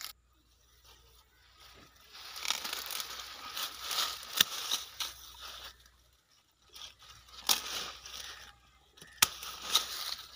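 Hand pruning shears cutting the low shoots of a guava tree: several sharp snips as the blades close, amid crackling rustle of the leafy cut branches being pulled free.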